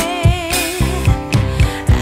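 Background pop song: a sung vocal melody over a steady drum beat.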